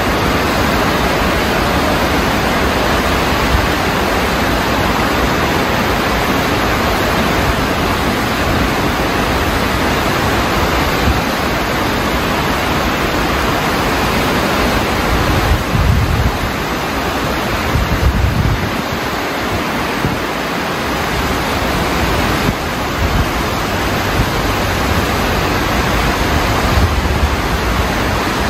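Steady rushing of a swollen stream in flood, fast brown floodwater churning past bridge pillars. Two brief low rumbles swell up about halfway through.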